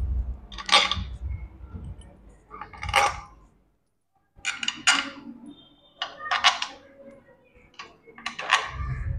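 Bolts clinking as they are set one by one into the clutch cover of a Hero Splendor motorcycle engine: a series of separate light metallic clinks.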